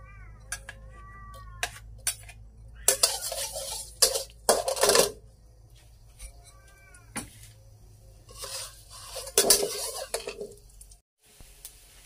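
Metal spatula clinking and scraping in a wok as chopped garlic fries in oil, with two louder spells of scraping and sizzling.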